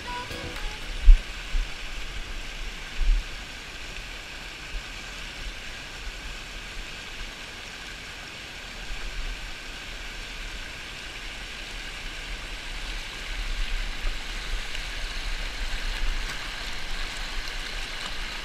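Fast, shallow river rushing over rocks in a steady roar of water, with two short low thumps about one and three seconds in.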